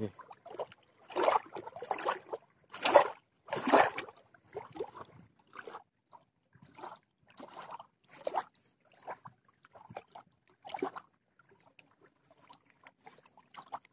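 Shallow water sloshing and lapping at the shore's edge in irregular splashy bursts, louder in the first few seconds and then fainter and sparser.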